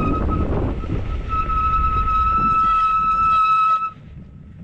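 Wind rushing over the microphone of a bicycle descending fast, joined about a second in by a steady high squeal, typical of the bike's brakes being held on the descent. Near the end the squeal and the wind noise drop away sharply.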